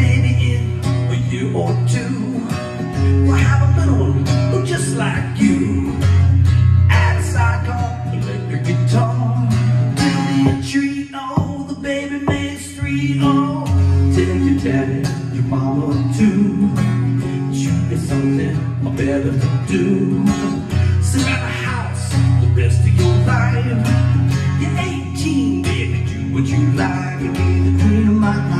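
A man singing a country-style song to his own strummed acoustic guitar, with steady, even strokes.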